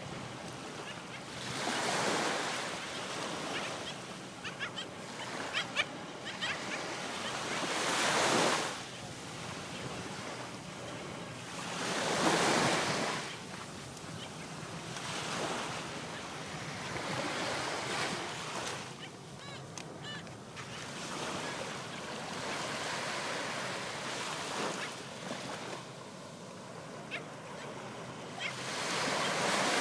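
Small sea waves washing onto a beach, the surf swelling and falling away every few seconds. The loudest washes come about two, eight, twelve and twenty-nine seconds in.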